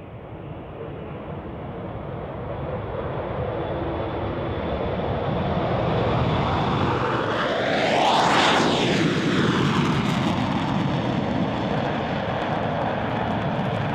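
Northrop/Canadair NF-5 jet fighter's twin J85 turbojets on a takeoff run, growing steadily louder as the jet approaches. It passes close about eight seconds in, where its whine drops sharply in pitch, then the engine noise carries on at a lower pitch as it moves away.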